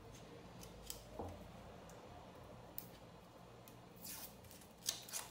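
Paper label being peeled and torn off a metal tin can: faint crinkling and tearing with a few small ticks, louder tearing about four seconds in and again near the end.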